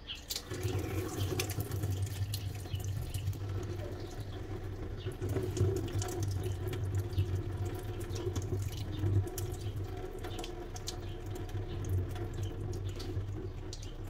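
Kitchen tap running water into a nano-tape balloon held on its spout, filling and swelling it. The rush of water has a steady low hum beneath it and many small crackles.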